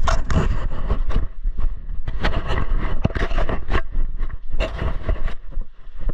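Rapid, irregular rustling and crunching of movement through forest undergrowth, over a steady low rumble of wind on the microphone.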